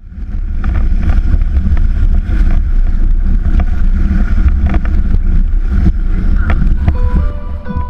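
Strong wind buffeting the boat-mounted camera's microphone with a heavy rumble, mixed with water rushing and splashing against the inflatable kayak's hull as the kite pulls it through choppy water, with sharp cracks of spray and gusts. Music comes in near the end.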